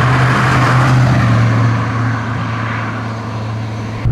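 Rover 4.6 V8 in a Ford Capri cruising at about 50 mph on light throttle, a steady low engine drone with road and wind rush that eases off after about two seconds.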